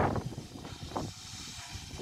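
Wind buffeting a phone microphone, dying away in the first half second with one short gust about a second in. Under it, a faint steady hiss from a Pt47 steam locomotive standing at the platform.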